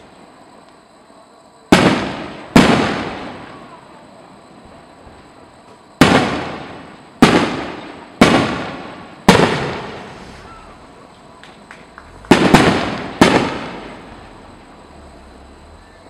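Aerial firework shells bursting overhead: about nine sharp bangs in irregular groups, each trailing off over a second or two. A few faint pops fall between them.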